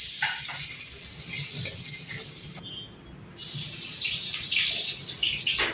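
Food sizzling in a hot wok over a gas flame as ingredients are added and stirred. The hiss drops out briefly about three seconds in, then comes back stronger.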